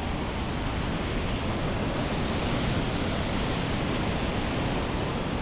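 Whitewater rapids of the Coquihalla River rushing through a narrow rock gorge: a steady, loud rush of water.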